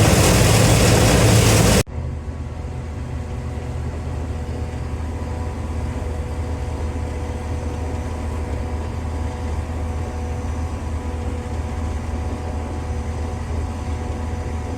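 A loud, even rushing noise cuts off suddenly about two seconds in. It gives way to a vehicle engine running steadily, a low drone with a few steady tones that holds without change.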